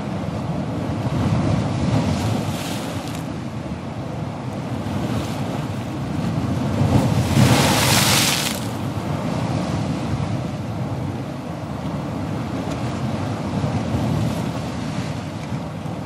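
Ocean waves breaking and washing in a steady rush, with one louder wave crashing about halfway through.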